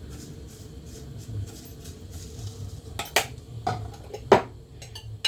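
Kitchen containers and utensils clinking and knocking on the counter as spices are handled: several sharp clicks in the second half, the loudest about four seconds in, over a steady low hum.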